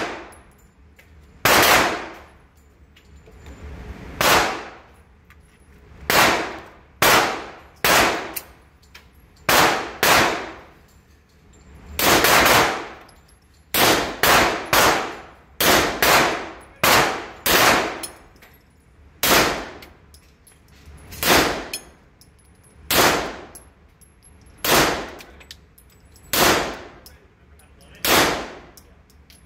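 Pistol shots from a stainless Beretta semi-automatic fired at an indoor range, about one a second at an uneven pace with some quick pairs, each shot echoing sharply off the walls of the lane.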